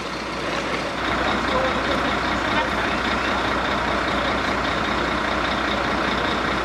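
Fire engine running, a constant steady mechanical noise that gets louder about a second in.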